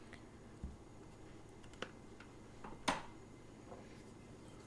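A few light clicks and taps of hard objects being handled, faint overall, with the loudest tap about three seconds in.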